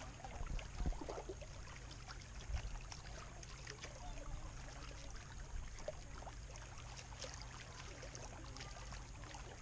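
Small waves lapping and trickling against shore rocks, with scattered little splashes and ticks. Under it is the faint steady turning of a spinning reel as the lure is retrieved.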